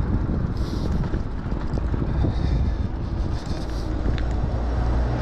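Wind buffeting the microphone while an e-bike is ridden along the road, with a steady low rumble underneath. A deeper, steadier hum builds near the end.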